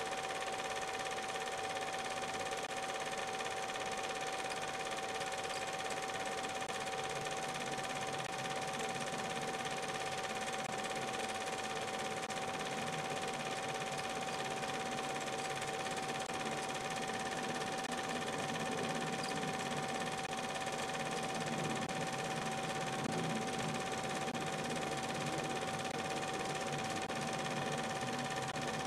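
Film projector running steadily: a continuous mechanical whir with a constant high hum.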